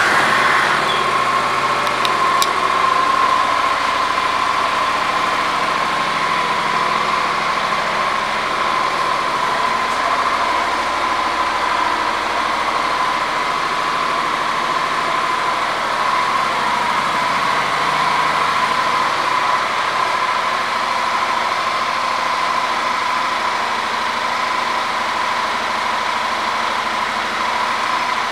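Honda NM4's 745 cc parallel-twin engine idling steadily, with a constant high-pitched whine running through it.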